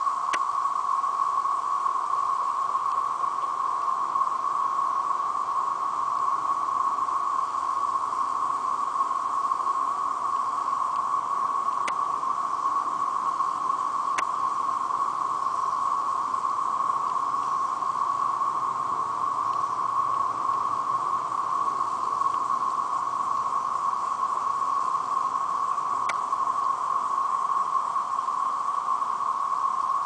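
Mass chorus of 13-year periodical cicadas (Brood XIX): a loud, steady, unbroken whine, with a few faint clicks.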